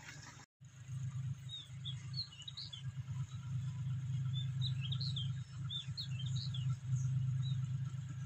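A John Deere tractor's engine runs at a steady low drone after a brief dropout near the start. Birds chirp over it in short, quick calls, in two spells about two and five seconds in.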